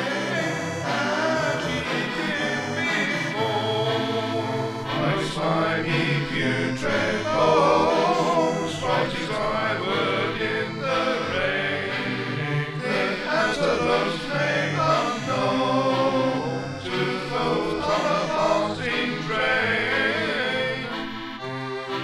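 A folk song: singing voices over accordion accompaniment.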